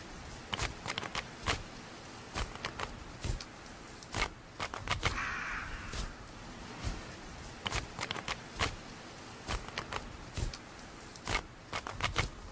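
Footsteps through tall meadow grass, with stalks rustling and brushing close to the microphone in irregular clicks and scrapes.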